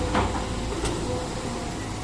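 Excavator working sand: its motor runs steadily, with a short scrape or knock near the start and another about a second in.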